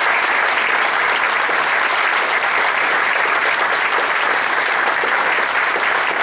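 A theatre audience applauding steadily, with the cast on stage clapping along.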